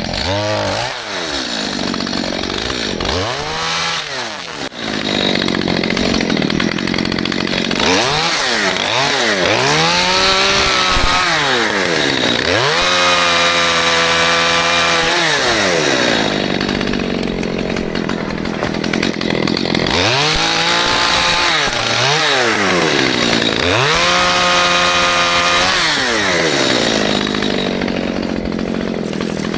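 Stihl MS211 two-stroke chainsaw running and cutting small trees, revving up and back down about seven times, with one longer cut held at high revs in the middle. The chain is dull but still cutting.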